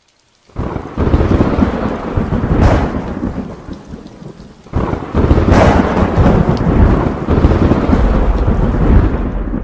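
Thunder rumbling over rain, in two long rolls, the second starting about five seconds in.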